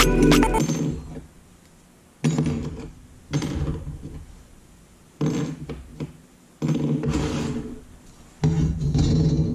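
Small plasma-cut sheet-metal trim pieces handled on a wooden workbench: five short bursts of knocking and scraping, a second or two apart.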